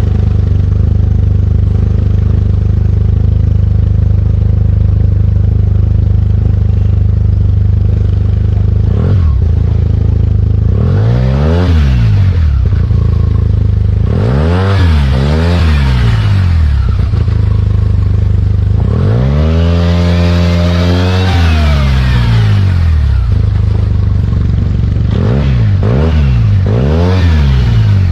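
SYM MAXSYM TL500 maxi-scooter's parallel-twin engine through an Akrapovic exhaust, idling steadily and blipped with the throttle: one rev about a third of the way in, two close together, a longer held rev past the middle, and three quick blips near the end, each rising and dropping straight back to idle.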